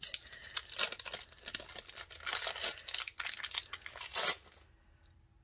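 Packaging being handled: crinkling and tearing of paper and plastic with many sharp crackles for about four seconds, then it stops.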